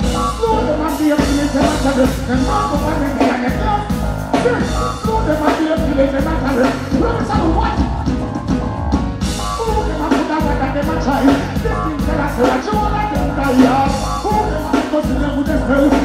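Live reggae music: a male vocalist chanting and singing into a microphone over a backing track with a strong bass line, through the stage sound system.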